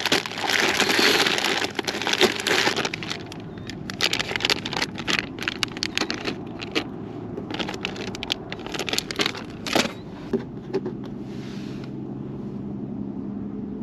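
Plastic soft-bait packaging crinkling and rustling while it is rummaged through, followed by scattered small clicks and crackles. A low steady hum takes over for the last few seconds.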